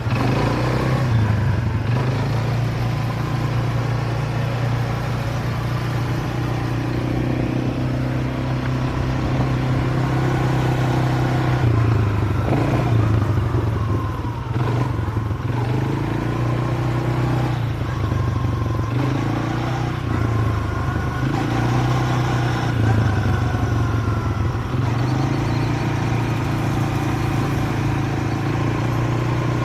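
Vehicle engine running under way, its pitch rising and falling again and again as the throttle opens and closes.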